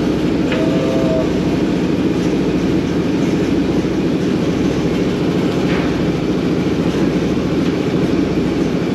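Tugboat's diesel engine running steadily at a constant speed, a loud, even low drone with a fast pulsing beat.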